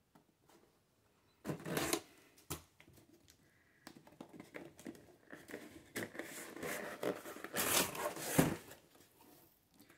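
Packing tape on a cardboard mailer box being slit and torn open, a sharp rip about a second and a half in, then the cardboard flaps being pried up and folded back with a run of scraping and rustling that is loudest shortly before the end.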